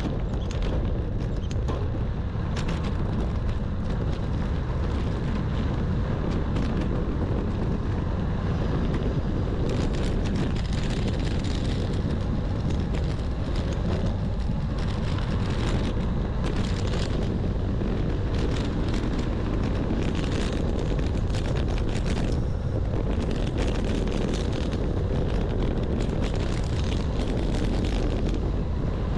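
Wind rumbling steadily on the microphone of a camera on a bicycle riding a dirt road, with irregular clicks and rattles from the tyres and bike over the rough surface.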